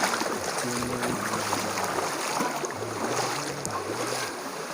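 Steady rush of flowing stream water, with a low melody of background music playing under it in held, stepping notes.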